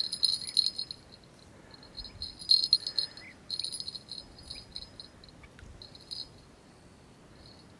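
Insects in summer grass chirping in short high-pitched trills that come and go.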